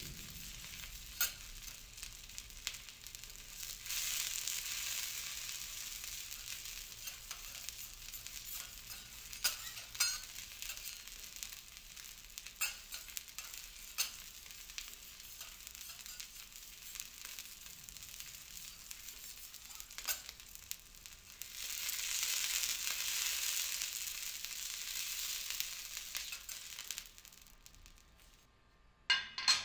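Food sizzling and frying on a hot teppanyaki griddle as a steady hiss. The hiss swells louder about 4 seconds in and again for several seconds late on, then dies away near the end. Sharp clicks are scattered through it.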